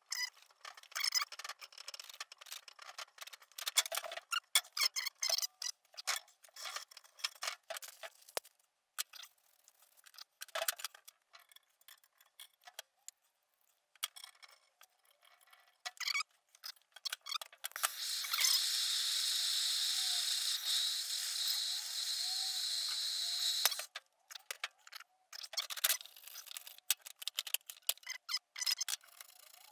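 Small clicks, taps and scrapes of hand tools and pipe fittings being handled during plumbing work. About two-thirds of the way through, a steady hiss runs for roughly five seconds and cuts off sharply.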